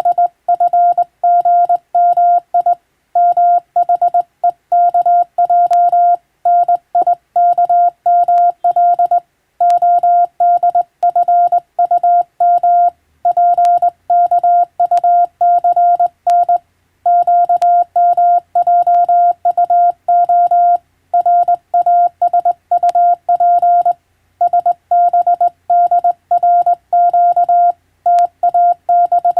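Morse code (CW) sent as a single steady beep tone, keyed on and off in a fast stream of short dots and longer dashes with brief gaps between characters and words.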